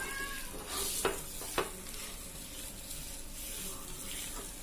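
Oil sizzling steadily in a hot non-stick frying pan, with two light knocks about a second in.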